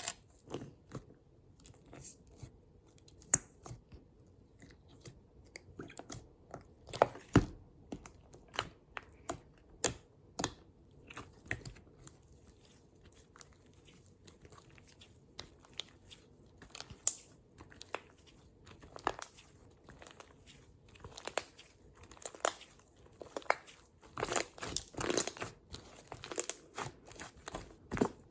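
Hands playing with slime: sticky crackles, pops and tearing sounds at irregular intervals, coming thicker in the last few seconds.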